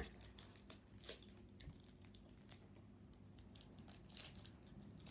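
Faint, scattered crinkles and crackles of a foil Pokémon booster pack being handled and opened, a little busier near the end.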